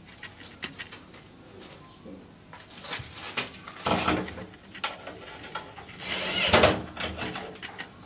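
Handling and fitting noises as a stainless-steel door handle is mounted on a shower cabin's glass door: scattered clicks and knocks, with a louder noisy rush about a second long around six and a half seconds in.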